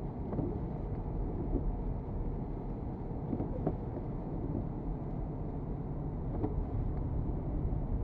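Steady low rumble of a car driving on a snow-covered highway, engine and tyre noise heard from inside the cabin, with a few faint ticks scattered through it.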